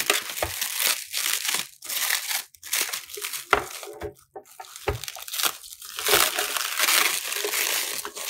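Black plastic wrapping crinkling and crackling as it is pulled and torn off by hand, in irregular bursts.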